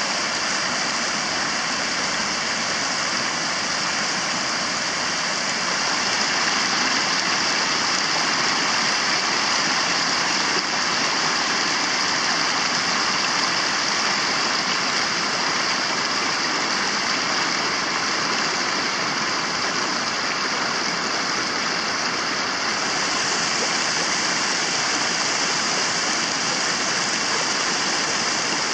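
Shallow river water rushing steadily over rocks and a weir covered by the current: a constant, unbroken rush.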